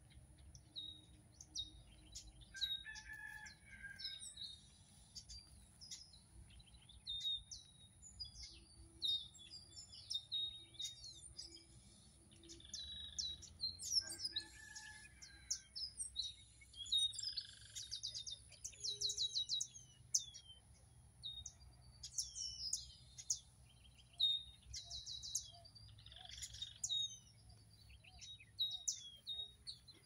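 Several small birds singing and chirping together, many short, quick, falling notes overlapping without a break.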